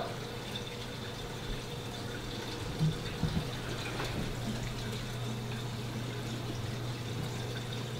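Quiet steady hum and hiss, with soft rustling of a cloth snake bag and a couple of faint knocks about three seconds in, as a Bahama boa is drawn out of the bag.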